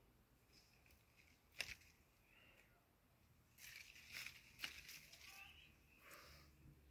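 Faint scratching and rustling of kittens moving about, with a sharp tap about one and a half seconds in and a denser run of short scratches from about three and a half seconds in.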